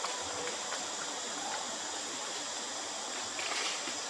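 Steady outdoor background hiss, strongest in the high range, with a faint short squeak about a second and a half in.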